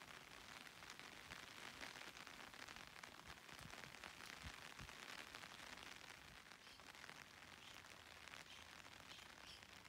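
Faint, steady rain falling, an even hiss of drops.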